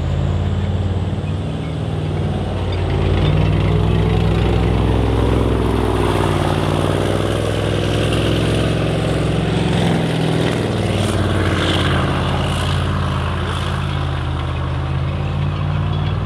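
Heavy tracked armoured vehicle's engine running steadily at a loud, even level, with a few sharp clanks about eleven to thirteen seconds in.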